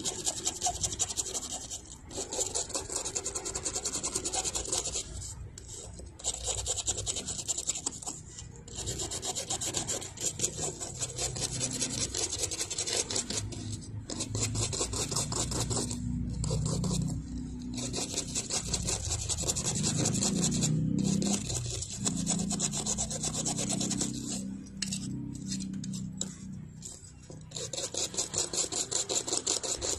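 Fast, continuous scraping-rubbing strokes as residual glue is worked off a phone's CPU chip, stopping briefly every few seconds.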